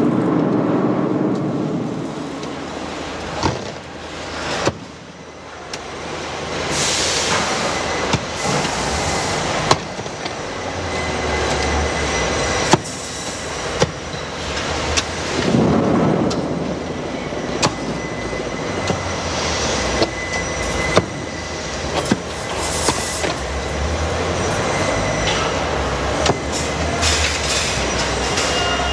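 Machinery running steadily with a low hum, with scattered sharp knocks.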